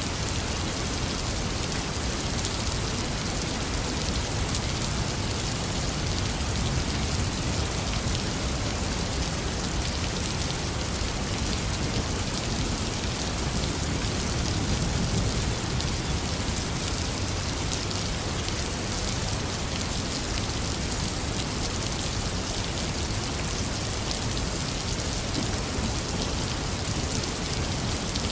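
Heavy rain falling steadily, a dense hiss of drops. A low rumble of distant thunder swells briefly about halfway through.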